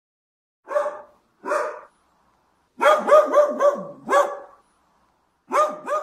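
A dog barking: two single barks, then a quick run of several, then more barks near the end.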